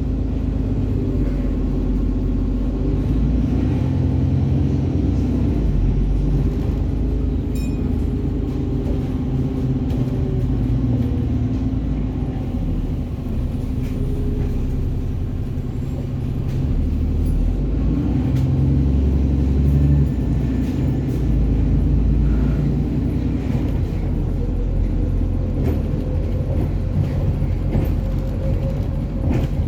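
Diesel engine of an Alexander Dennis Enviro400 double-decker bus running under way, a steady low rumble that swells and eases a few times, loudest about two-thirds of the way through.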